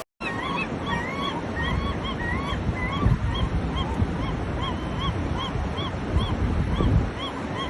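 Gulls calling: a long run of short calls that rise and fall in pitch, about three a second, over a steady low rumble.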